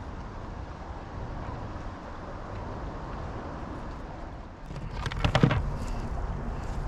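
Steady low outdoor rumble with a quick rattle of knocks and scrapes about five seconds in, handling noise as the camera is swung down toward the ground.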